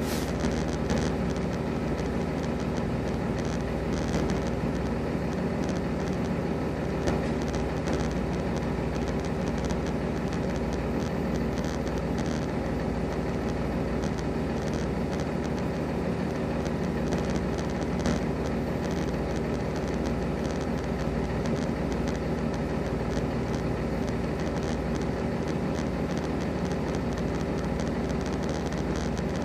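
Semi-truck diesel engine running at low idle while the tractor-trailer backs slowly, a steady drone with a few faint clicks.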